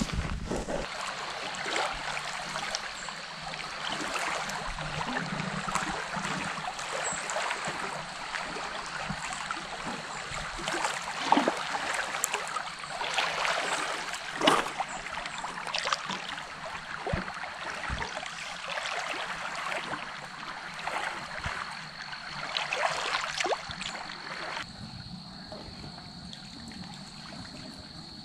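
Small lake waves lapping against a rocky shore, a steady wash of water broken by frequent little splashes; the lapping drops away abruptly near the end.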